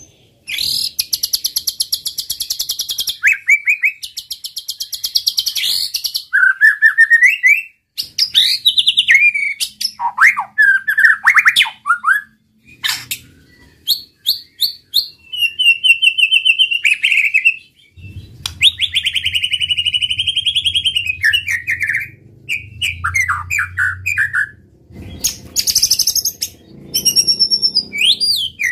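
White-rumped shama singing a long, varied song in bursts: rapid-fire runs of fast repeated notes alternate with sliding whistles and short warbled phrases, separated by brief pauses.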